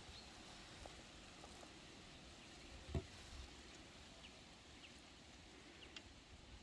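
Near silence with faint handling sounds of food and bread: a few small ticks, and one soft thump about three seconds in as a spoon is set down on a metal platter.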